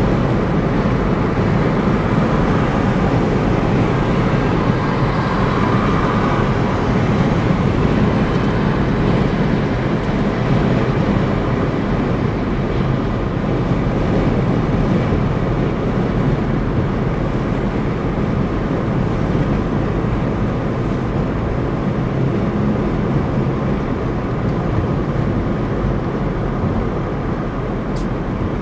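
A car driving at highway speed, with steady tyre and wind noise that eases slightly toward the end as it takes an exit ramp.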